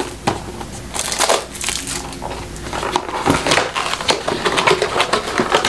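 Cardboard gift box being worked open by hand: irregular scraping, rustling and crinkling of card and paper as the lid and inner flap are pulled up.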